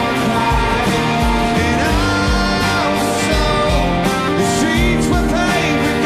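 Live rock band playing: strummed acoustic guitar, bass and drums, the kick drum steady at about two beats a second.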